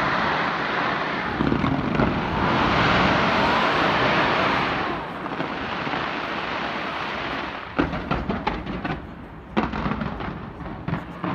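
Large fireworks display: a dense, continuous crackling rush for the first few seconds that then eases off, followed by a run of sharp, separate bangs from about eight seconds in.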